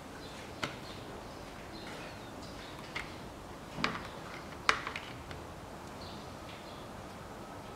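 Hard plastic coolant expansion tank being handled and turned over, giving about five short sharp clicks and taps, the loudest a little past the middle, over a steady background hiss.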